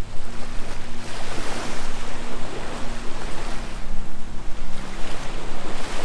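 Small Gulf of Mexico waves breaking and washing up a sandy beach, the wash swelling about a second in and again near the end.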